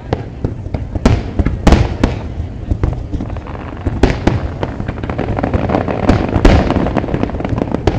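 Fireworks exploding: a rapid, irregular string of sharp bangs over a continuous low rumble, with a stretch of dense crackling partway through.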